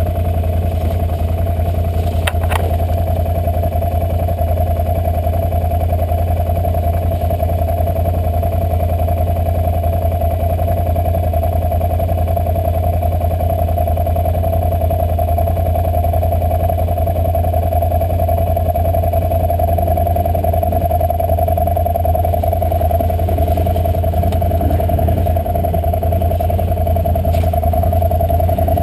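ATV engine idling steadily while the machine stands still.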